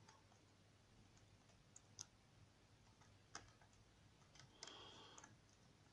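Lock pick hook and tension wrench working the pins of a Gege euro cylinder: a few faint, sharp metallic clicks spaced a second or more apart, and a short scrape about two-thirds of the way through.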